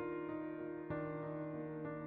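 Calm background music: sustained melodic notes changing every half second or so over a steady low drone.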